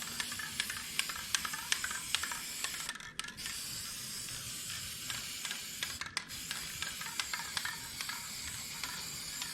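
Spray paint hissing steadily as a coat goes on, with two brief breaks in the spray about three and six seconds in.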